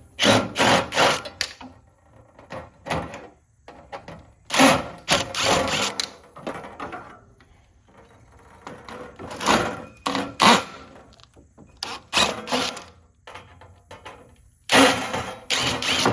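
Cordless drill/driver with a 1/4-inch nut driver, run in short on-off bursts to back out the screws holding a radiator's side pieces on. The longest runs come about four to six seconds in, around ten seconds in, and near the end.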